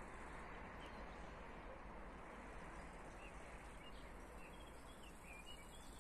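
Faint steady outdoor background noise with a few short, scattered bird chirps.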